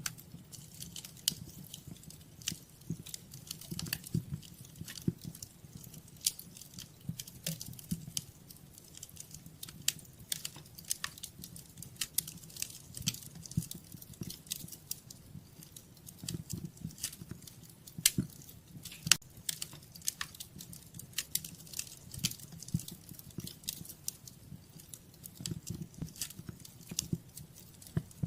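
Wood fire crackling in a fireplace: frequent, irregular sharp pops and snaps over a soft low rumble of the flames.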